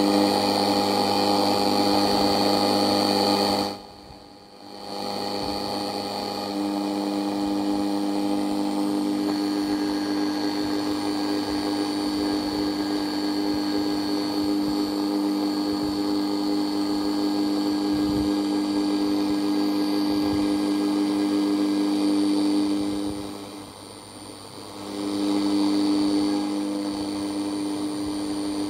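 Sony CXA1619 radio receiver board playing through its speaker with no station tuned: a loud buzzing noise with several steady whistling tones over it. The noise shows the freshly wired board working but picking up a lot of background interference. The buzz drops away briefly twice, about four seconds in and again near the end.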